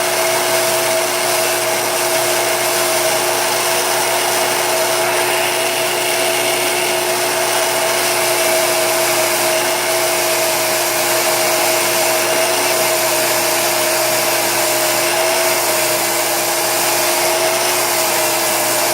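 Electric drill motor running steadily at one speed, a steady whine over a grinding hiss, as its 40 mm diamond wheel sharpens a carbide Greenteeth stump grinder tooth.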